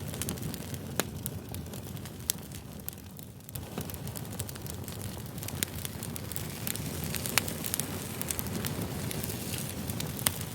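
Campfire burning: a steady low rumble of flames with frequent sharp crackles and pops from the burning wood, some louder than others.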